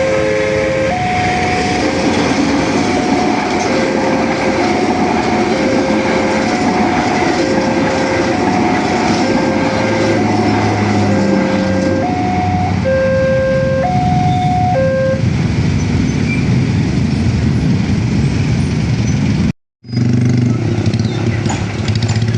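Railway level-crossing warning alarm sounding, a two-tone signal alternating between a higher and a lower note about once a second, over a loud steady rumble of heavy traffic. The alarm stops about fifteen seconds in, and the rumble continues after a brief dropout near the end.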